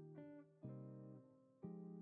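Background music: quiet acoustic guitar, strummed chords struck about once a second, each ringing and fading.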